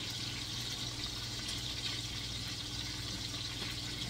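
Sausage links slow-frying in olive oil in a stainless steel pan, giving a steady, even sizzle.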